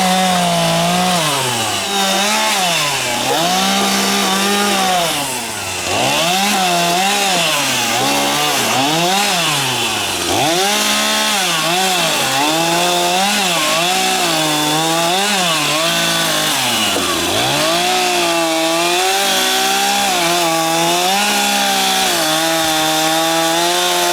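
Stihl chainsaw running at high revs while cutting maple wood, its engine pitch repeatedly sagging and climbing back, a dozen or so times, as it works through the cut.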